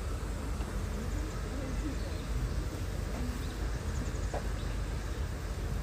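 Steady low rumble with faint people's voices in the background.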